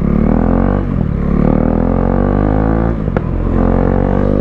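KTM RC 390's single-cylinder engine through an aftermarket Akrapovic muffler, accelerating through the gears: the pitch climbs, drops at a shift about a second in, climbs again, and after a sharp click at the next shift about three seconds in climbs once more.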